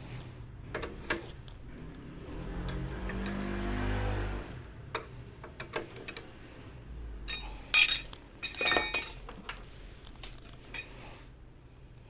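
Metal hand tools clicking and clinking on a Yamaha Cygnus X 125 scooter's front wheel hardware as the axle and caliper are tightened with a long wrench. A rushing swell rises and fades about three to four seconds in, and the loudest part is a cluster of sharp metallic clinks around eight to nine seconds.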